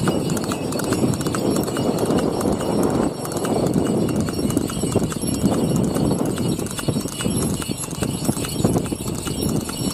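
Steady clip-clop of a horse's hooves as it trots on a road pulling a light two-wheeled cart.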